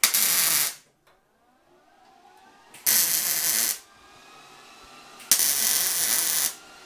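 MIG welder welding steel in three short runs, each a burst of arc noise about a second long, with short pauses between.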